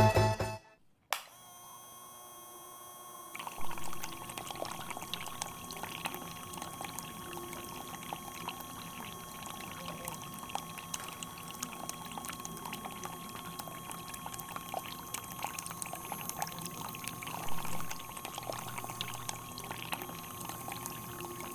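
A click about a second in, then from about three seconds on a steady stream of water pouring and splashing from small pipes into a miniature tank, pumped by a toy DC-motor water pump, with a faint steady whine underneath.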